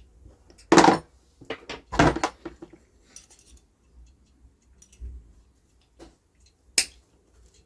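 Metal parts and tools clinking and knocking while the solenoid valve of a Gaggia Classic espresso machine is being taken off: a loud clank about a second in, two more around two seconds, a few light ticks, and one sharp clink near the end.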